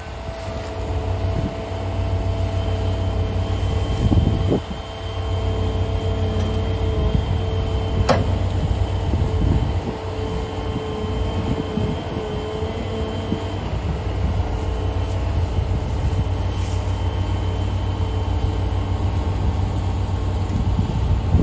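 John Deere 240D excavator's diesel engine running steadily under load, with a steady whine above it, as the excavator lifts a combine by a chain. A single sharp click about eight seconds in.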